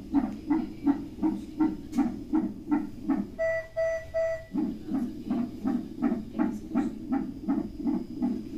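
Cardiotocograph fetal monitor's Doppler relaying the unborn baby's heartbeat: a steady whooshing pulse at a little over two beats a second, within the normal fetal range. About three and a half seconds in, the pulse drops out for a second while the monitor gives three short beeps.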